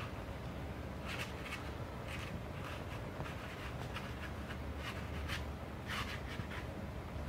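Watercolour brush working over the paper: a series of short, scratchy brushing strokes at irregular intervals, over a steady low hum.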